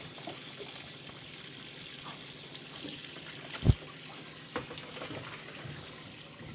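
Steady hiss of water spraying and trickling in a boat's live well from its cut-down sprayer tube, over a faint low pump hum. A single heavy dull thump stands out a little past halfway, with a lighter knock just after.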